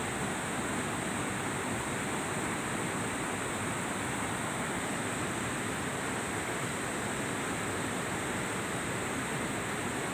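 Steady rush of splashing, flowing water at an even level, without a break.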